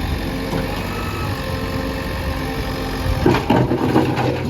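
Engine idling steadily. About three seconds in, louder irregular clattering noise comes over it for about a second.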